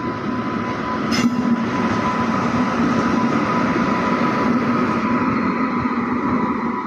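WAG-9 electric locomotive running past: a steady rumble of wheels and machinery with a thin steady whine over it, and one sharp clank about a second in.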